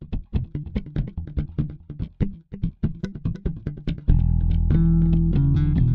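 Background music: quick plucked guitar notes, then about four seconds in a steady bass guitar and fuller backing come in and the music gets louder.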